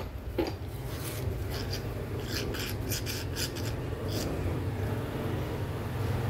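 Rebuilt steering gearbox being handled and shifted about on cardboard: a quick run of short scraping rubs about one to four seconds in, over a steady low hum.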